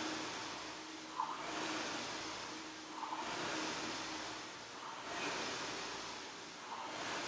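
Air-resistance rowing machine in use: its fan flywheel whooshes up and dies away with each stroke, about one stroke every 1.8 seconds.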